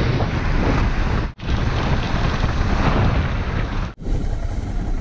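Wind rushing over the microphone of a camera on a moving motorcycle, with the bike's running drowned in the rush. The sound drops out briefly twice, about a second in and again near the end.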